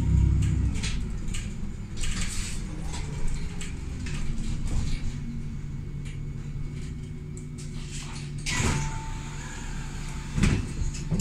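City bus running and slowing to a stop, heard from inside. At about eight and a half seconds there is a burst of air hiss and a short beep as the doors are worked, then a few clunks about two seconds later.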